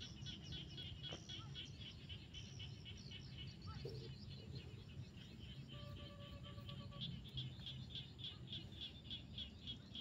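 A chorus of frogs calling, dense rapid calls repeating evenly several times a second over a low steady hum. About six seconds in, a steady tone sounds for about a second.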